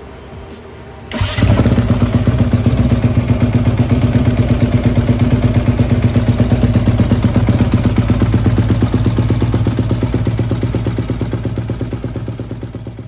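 Honda CRF250R's single-cylinder four-stroke engine, freshly rebuilt top end, starting up about a second in and then running at a steady idle with rapid, even firing pulses, fading out near the end.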